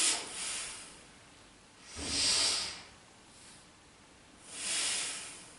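A woman's deep, forceful yoga breaths, heard as three hissing rushes of air about two and a half seconds apart, alternating inhale and exhale in time with the exercise.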